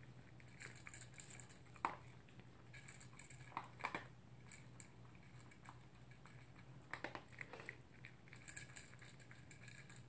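Toy poodle eating from a plastic bowl: faint chewing and small clicks of food and muzzle against the bowl, in short spells with pauses, the sharpest click about two seconds in.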